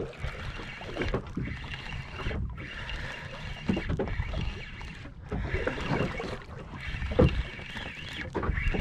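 Water sloshing against a small fishing boat's hull, with a low uneven rumble and occasional knocks.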